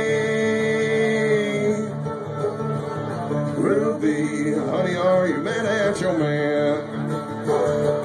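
Live bluegrass music on acoustic guitar, five-string banjo and upright bass. A long held sung note trails off about two seconds in, and singing comes back in near the middle.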